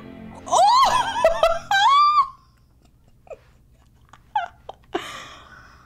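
A woman squealing and giggling in high-pitched excitement for about two seconds, then a few short little sounds and a breath.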